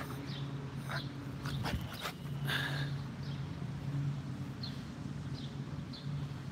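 A dog whining in short, high, falling squeaks, repeated every half second or so, over a steady low hum.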